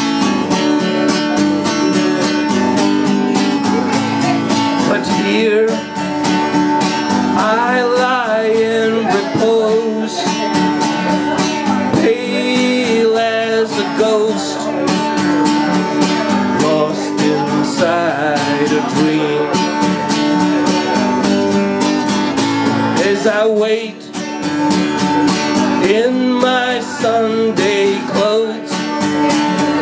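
Acoustic guitar strummed steadily while a man sings over it in phrases: a solo singer-songwriter performance.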